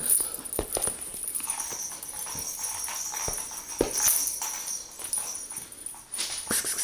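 Kittens playing with a pom-pom wand toy: scattered light taps and scuffles from paws and the toy. A steady high-pitched tone runs behind them.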